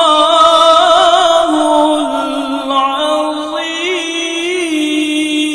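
A man's voice chanting Quran recitation (tilawah) through a microphone: a long melismatic line with quick wavering ornaments, settling onto a steady held note near the end, on the closing formula 'ṣadaqallāhul-ʿaẓīm'.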